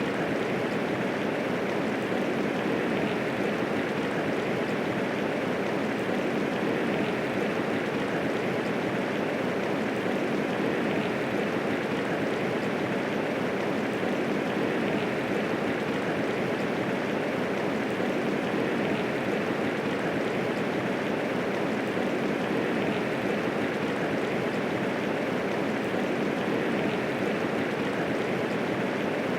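Steady, even rainfall of medium intensity, a continuous hiss of falling rain without thunder or distinct drops standing out.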